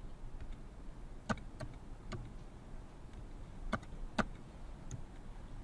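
Quiet room tone with about five faint, short clicks spread over a few seconds, from slides being clicked ahead on a computer.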